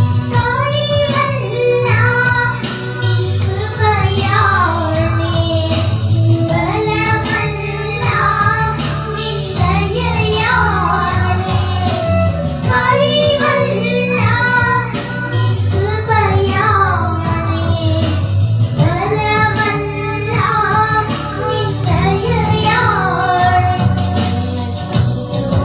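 Two young girls singing a Christian song into microphones, amplified, over instrumental backing with a steady bass line.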